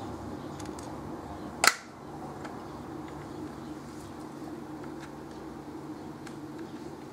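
A single sharp shot from a homemade pre-charged pneumatic airgun about one and a half seconds in, over a steady low hum.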